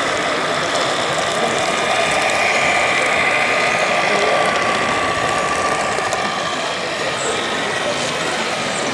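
1/16-scale RC tanks running: a steady mechanical whir and clatter from their small gearbox motors and tracks, with a faint high whine.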